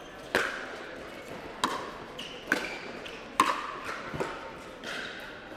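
Pickleball rally: sharp pops of paddles striking the hard plastic ball, about six in all, roughly a second apart.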